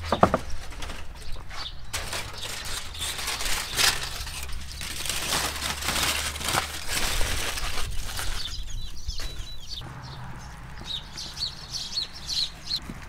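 A heavy cast-iron pan knocks down on a wooden board, then aluminium foil crinkles and rustles loudly for several seconds as it is pulled off the roast. Near the end there are small crackles as a knife cuts into the crisp, browned crust.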